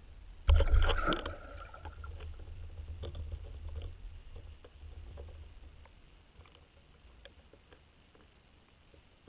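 A pike striking a dead bait at the water's surface, heard through an underwater camera: a sudden loud splash about half a second in, followed by a low rumble of churned water that fades over a few seconds, with faint clicks.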